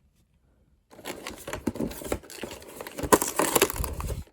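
Plastic toy packaging crinkling and rustling as it is handled and opened, with many small clicks and taps of plastic. It starts about a second in.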